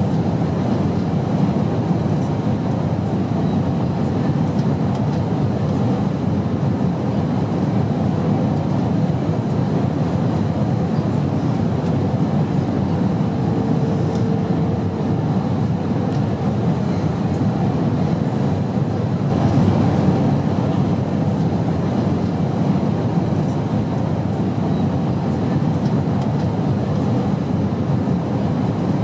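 Airplane in flight: a steady, even drone of engine and rushing air, with a faint brief tone about halfway through.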